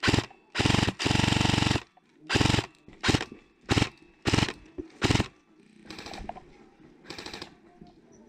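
Airsoft electric rifle firing full-auto bursts: about eight short bursts of rapid clicking shots over five seconds, one held for about a second, followed by fainter scattered sounds.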